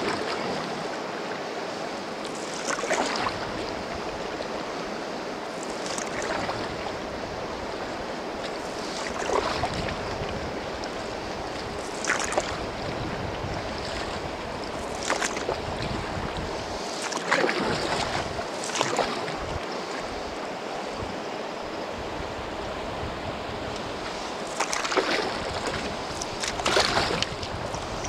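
Blade strokes splashing into calm river water from a small boat, one about every three seconds, over the steady rush of the river.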